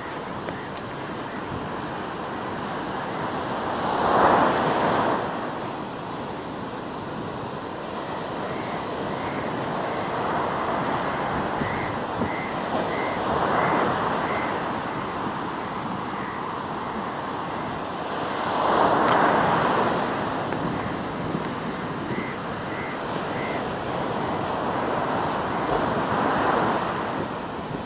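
Ocean surf washing steadily onto a beach, with four louder breaking waves spaced several seconds apart.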